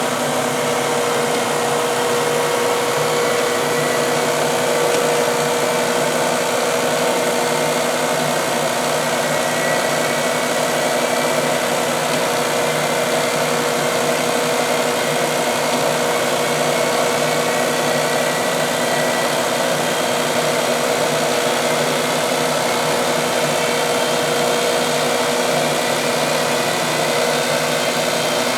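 Heald No. 271 toolroom internal grinder running through its automatic grinding cycle: a steady machine hum carrying a constant mid-pitched tone, unchanged throughout.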